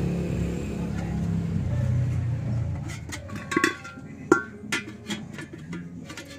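A low vehicle engine hum that fades out about three seconds in, followed by a series of sharp metallic clinks and taps as a sheet-metal cylinder and a square steel tube are handled and fitted together, some of them ringing briefly.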